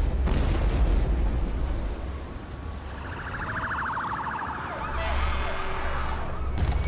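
A rumbling blast of burning fuel dies down over the first two seconds. Emergency-vehicle sirens then come in: a fast yelp about three seconds in, giving way to a rising and falling wail.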